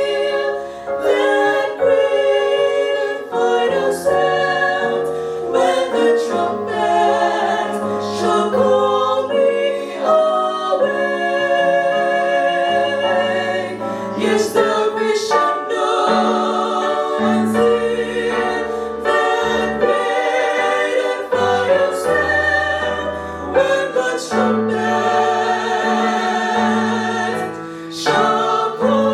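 Gospel song sung by a choir over instrumental accompaniment with held bass notes.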